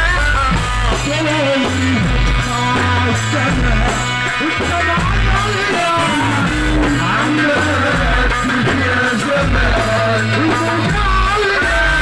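Live Egyptian wedding music played loud through a PA: a man sings a wavering melody into a microphone over a band with a heavy stepping bass line and drums.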